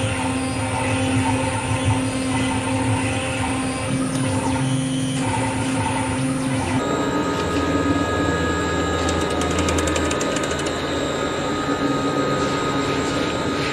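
Acctek AKM6090C CNC router running continuously during a test cut on wood: a steady spindle whine with several held tones. About seven seconds in, the pitch of those tones changes abruptly, with faint rapid ticking a couple of seconds later.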